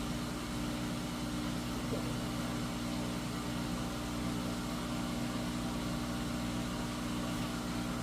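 Newly replaced drain pump of a GE front-load washing machine running with a steady hum, pumping the water out: the washer is draining again.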